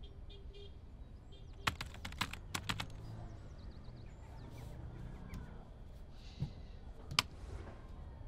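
Computer keyboard typing: a quick run of about nine keystrokes about two seconds in, entering a password, then one more sharp click near the end.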